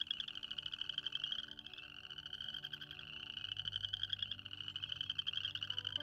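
A chorus of frogs calling from shallow water in early spring: many overlapping high, rapid trills.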